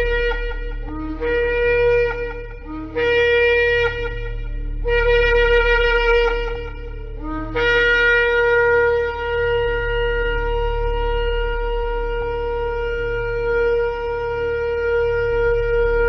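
Shofar (ram's-horn trumpet) blowing three short blasts of a second or two each, every one starting on a low note and jumping up, then one long held blast lasting about nine seconds. A low steady hum runs underneath.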